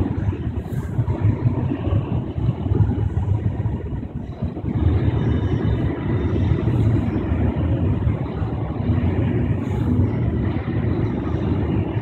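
A Leonardo metro train on Milan's Line 1 approaching along the track, a steady low rumble that grows a little louder about five seconds in, with a faint high whine joining it.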